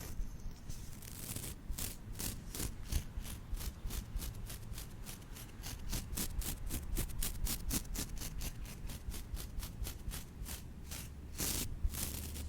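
Stiff-bristled wooden brush scrubbed rapidly across a microphone, about three short strokes a second, ending with two longer sweeps.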